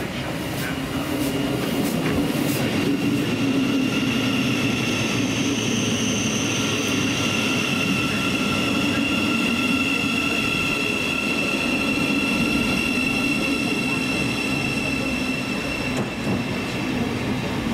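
A train running past on the line, with a steady high-pitched whine and a low rumble from the wheels and rails throughout, and a few sharp clicks in the first seconds.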